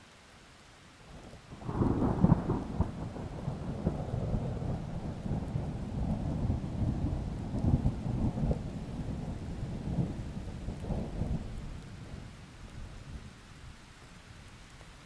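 A long roll of thunder over steady rain: it breaks in sharply with a crack about two seconds in, rumbles on with crackling peaks for about ten seconds, then fades back to the rain.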